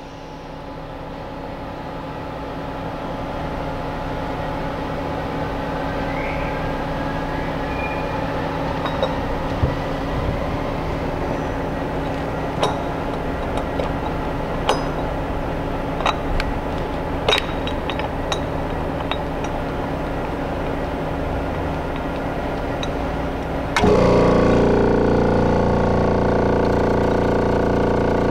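Steady machine hum from an electric-over-pneumatic stud drive tool, with scattered sharp metallic clicks and knocks as the gripper and locking collar are fitted by hand. About 24 s in, a louder hum with several tones starts suddenly and runs on.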